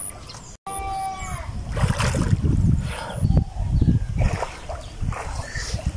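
A rooster crowing briefly near the start, then uneven low buffeting of wind on the microphone.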